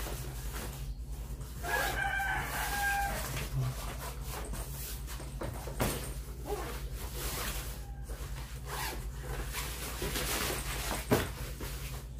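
A rooster crows once in the background about two seconds in, over a steady low hum, with the occasional knock and rustle of a suitcase's fabric lining being handled.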